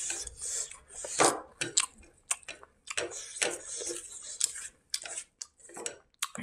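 Eating by hand: fingers mashing and mixing food against a plate, with chewing and wet mouth smacks, heard as a string of short, irregular clicks and crackles.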